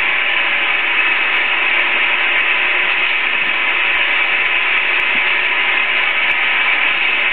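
Steady hissing whir of film-projection booth machinery, running evenly without a break.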